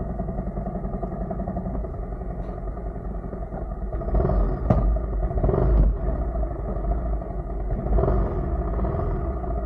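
Motorcycle engine idling steadily. It grows louder for a couple of seconds around the middle, with one sharp click about halfway through.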